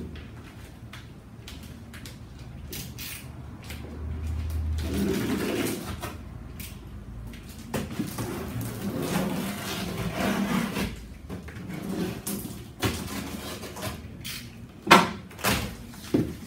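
A cardboard box being handled and opened: cardboard scraping and rustling with scattered knocks, and one sharper knock near the end.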